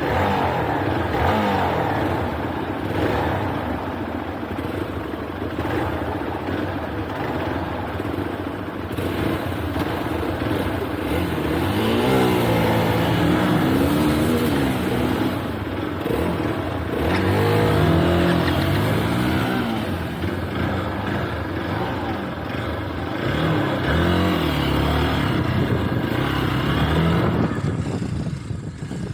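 Hero Xpulse 200 single-cylinder motorcycle engine running under a rider's throttle, its pitch rising and falling in several revs, the clearest about halfway through and again later on.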